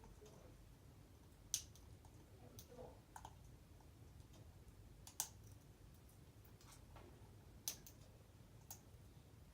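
African grey parrot making sharp clicks: three loud single clicks a few seconds apart, with a few fainter ones between them.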